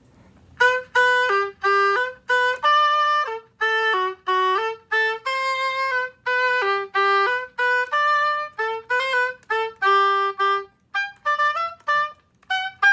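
Oboe playing a simple tune as a string of separate, clearly tongued notes in its middle register, ending just before the close.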